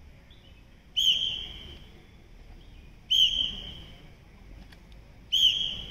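Three short, shrill whistle blasts about two seconds apart, each fading quickly: a drill whistle sounding signals during rifle reflex-shooting practice.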